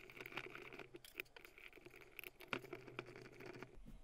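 Faint, scattered light clicks and taps of small metal parts being handled against the steel side plate of a miniature rock crusher housing, a few a little sharper than the rest.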